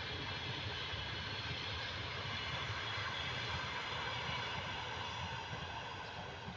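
Passenger train running past at speed: a steady rumble and rush of coaches' wheels on the rails.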